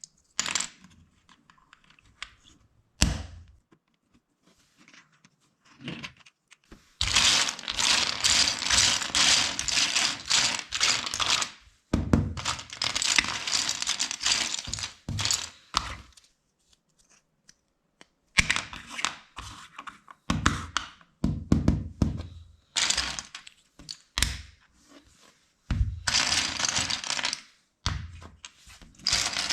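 Small plastic LEGO bricks clattering as loose pieces are stirred and handled, in several dense stretches of a few seconds each, between single sharp clicks and knocks of pieces being pressed together.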